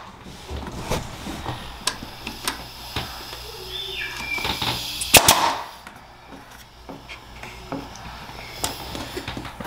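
Nail gun firing nails through wooden board-and-batten trim into the wall studs: sharp, irregular shots about once a second, the loudest about five seconds in.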